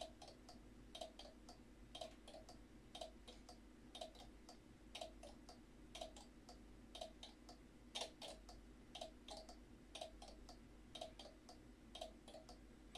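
Relay clock's relays clicking, a quick cluster of two or three clicks once a second as the seconds count. About eight seconds in a louder burst of clicks comes as the minutes digit steps over.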